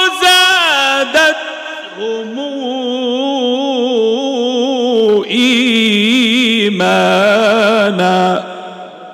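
A man's solo melodic Quran recitation into a microphone: long held notes with wavering, ornamented turns of pitch, broken by a short breath about a second in. The voice stops about eight seconds in and its echo fades away.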